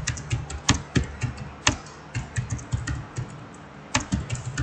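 Computer keyboard typing: quick, irregular keystroke clicks that thin out briefly and pick up again about four seconds in.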